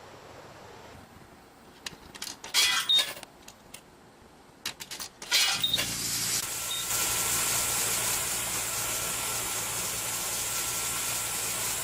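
A tire being inflated with compressed air after a plug repair: a steady hiss of air with a motor hum, starting about halfway through. A few knocks and rattles of handling come before it.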